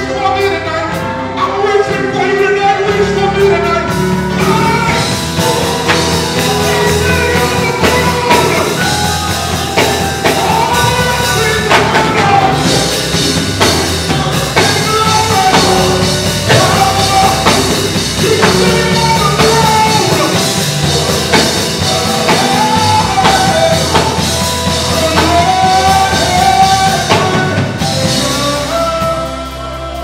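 Live gospel worship song: lead and backing singers over a full band with drum kit. The band's low end fills in about three seconds in.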